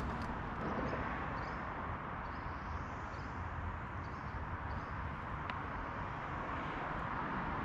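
Steady outdoor background noise, a low rush of wind or moving water, with a few faint high bird chirps in the first half.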